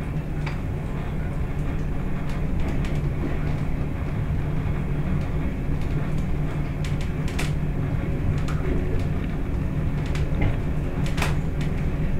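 Class 122 'bubble car' diesel railcar under way: a steady diesel engine drone with the running noise of the train on the track. A few short sharp clicks stand out over it.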